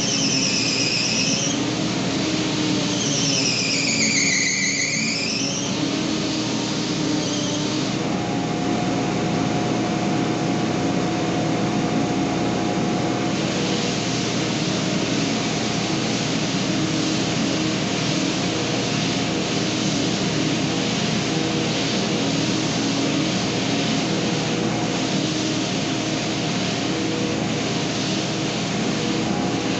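Stationary belt sander with a coarse 40-grit belt running under load as a wooden stair tread is sanded on it. The sound is a steady, loud machine noise, with two high whines that bend in pitch in the first few seconds.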